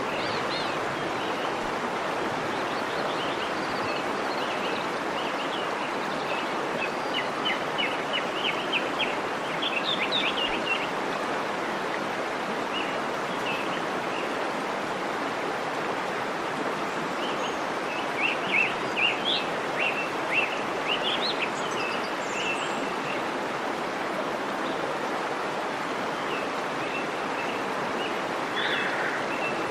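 Waterfall rushing steadily, with birds chirping over it in two short bouts, about seven seconds in and again about eighteen seconds in.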